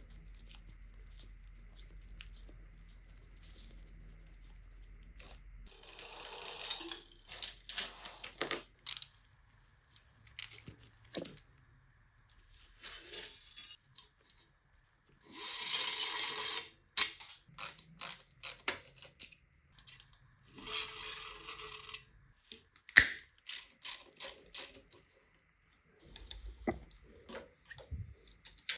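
Hands working on a bicycle's parts with tools: scattered clicks and clatter of small metal parts, with several bursts of scrubbing or rustling noise lasting one to two seconds each.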